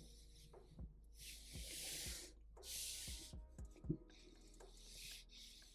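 Felt-tip marker drawing quick strokes on paper: a quiet run of short scratchy swishes, each about half a second long, with soft knocks in between, the sharpest just under four seconds in.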